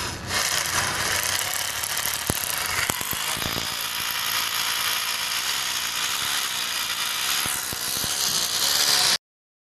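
Electric hammer drill with a masonry bit drilling into a plastered masonry wall, running steadily for about nine seconds and then stopping abruptly.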